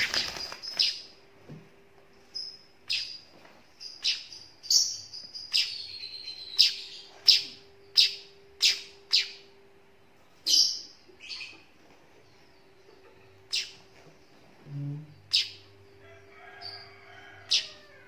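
Young weaver bird (manyar) chick giving short, high chirps, one every half second or so for about ten seconds, then more spaced out. A brief wing flutter at the start.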